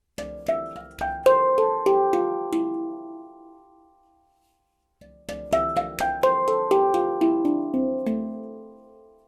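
A 16-note Baopan handpan tuned to D Amara, played by hand: two phrases of quickly struck notes that step down in pitch and are left to ring out and fade, with a short silence between them.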